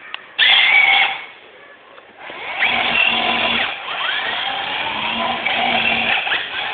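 A small ride-on ATV's motor whirring, heard through badly distorted phone audio. It runs briefly, drops off for about a second, then starts again and keeps going.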